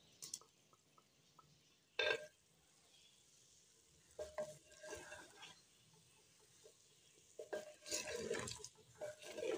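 Wooden spoon stirring chicken pieces and garlic-ginger paste in a clay handi, in short, quiet bouts of scraping against the pot. There is a single sharp knock about two seconds in.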